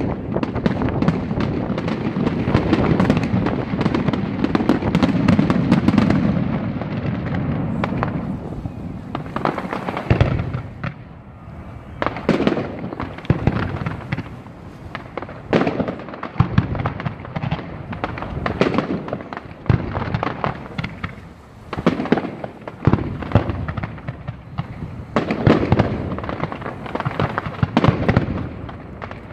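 Fireworks display finale: a dense barrage of bangs and crackling for the first several seconds, then separate shell bursts every second or two with short lulls between.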